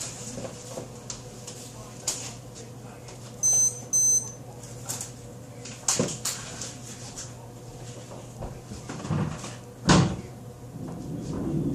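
Two short electronic beeps about half a second apart, among scattered knocks and clicks over a steady low hum.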